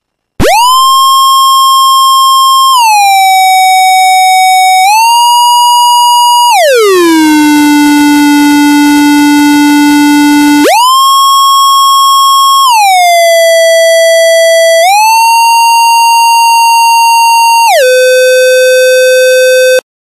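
Square-wave tone from a CD4046 chip's voltage-controlled oscillator, stepping through about eight notes. Each note holds steady, and a smooth glide of about half a second joins one note to the next. A capacitor holds the control voltage, so the pitch stays put, but the portamento glide is still long. The lowest note, in the middle, carries a rough hiss under it.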